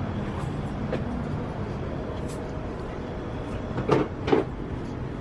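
Steady low city background hum, with two sharp knocks about half a second apart near the end.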